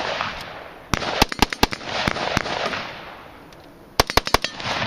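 Rifle fired in rapid strings of shots a fraction of a second apart: a burst of four or five shots about a second in, a couple more, then another quick burst of five or six about four seconds in. Each burst leaves a fading echo.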